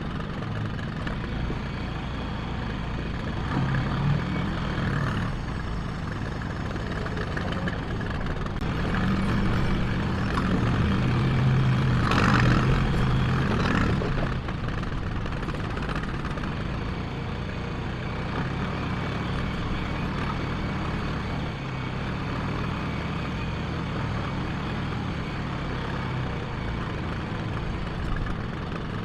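John Deere 310A backhoe's diesel engine running steadily after a fresh oil change, growing louder for a few seconds midway.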